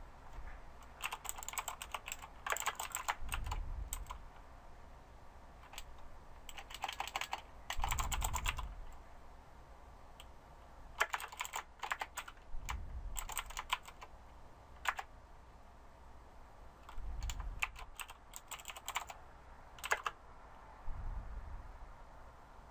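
Typing on a computer keyboard in bursts of quick keystrokes separated by short pauses, with dull low bumps now and then.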